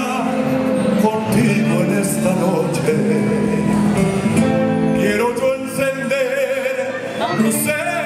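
Live folk band playing a zamba on guitars, bass and a large stick-played drum, with a man singing the melody over it.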